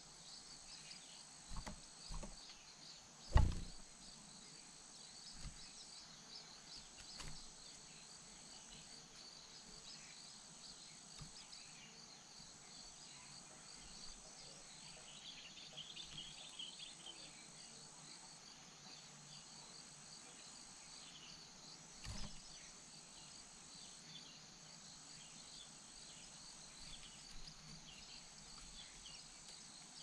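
Steady high-pitched insect chorus with a few dull thumps, the loudest about three seconds in. A brief patch of faint high chirps comes about halfway through.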